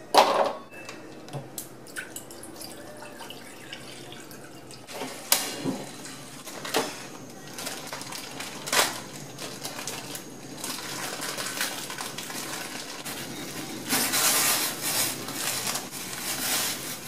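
Metal saucepan of water knocked down onto a gas hob, then heating with a steady hiss and scattered ticks and pops. Near the end the hiss grows louder as the water comes to the boil and a block of instant noodles goes in.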